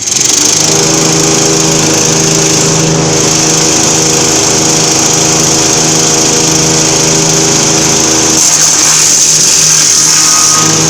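Small-engine wood chipper (GS120) running steadily. From about eight seconds in, the even engine tone breaks up into a rougher noise for a couple of seconds before settling back.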